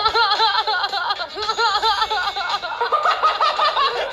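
Recorded clip of two young men laughing together, a continuous string of quick high-pitched giggles, played back from a phone as a notification tone.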